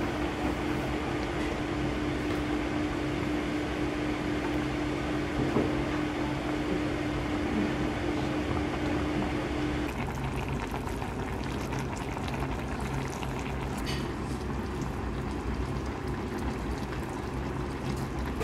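Steady sound of moving liquid over a low, steady hum. A steady mid-pitched tone stops about ten seconds in, where the sound changes.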